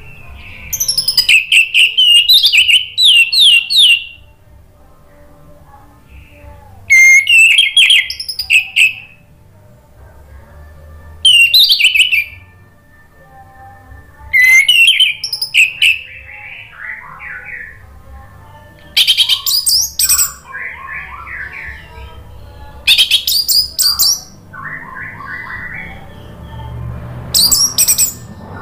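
Orange-headed thrush (anis merah) singing in loud bursts of rapid, high warbled phrases, about seven bursts a few seconds apart. Softer, lower warbling fills some of the gaps.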